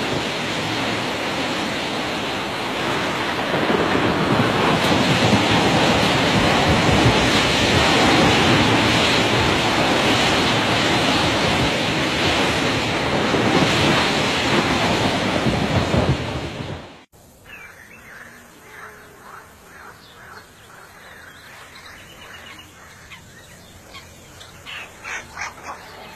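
A steady, loud rushing noise cuts off abruptly about 17 seconds in. It leaves a much quieter stretch with faint short calls, a little louder near the end.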